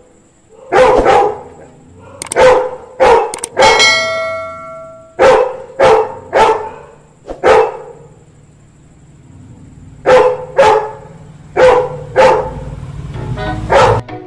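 Yellow Labrador retriever barking, about fourteen loud single barks in clusters of two to four with a pause of a couple of seconds partway through: alarm barking in answer to street dogs. A ringing tone sounds for about a second just after the fourth bark.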